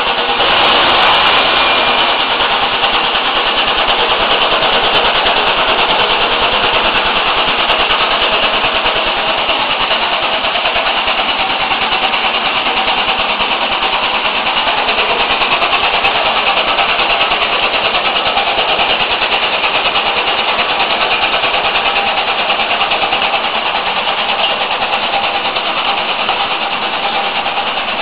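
Almond cracking machine running steadily, cracking almonds in their shells: a loud, even mechanical din without breaks.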